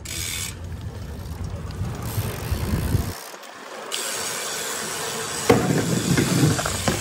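BMX bike rolling over stone paving: a rumble and rattle from the tyres and frame. The sound breaks off a little after three seconds in and comes back as a steadier hiss, and it turns into a louder clattering rattle from about five and a half seconds.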